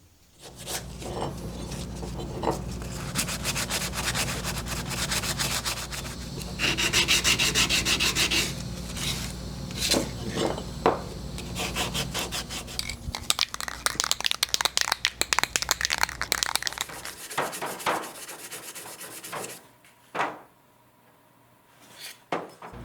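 Sanding on sheet-metal trim: rapid, continuous scraping strokes over a steady motor hum. After about 17 s the hum stops and only a few separate strokes follow, with short quiet gaps.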